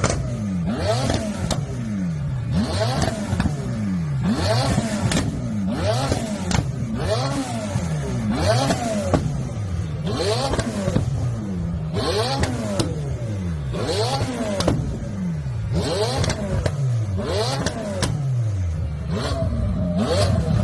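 A modified car's engine revved hard over and over, about once every two seconds, each rev rising and falling back, with a sharp crack from the exhaust at the top of most revs.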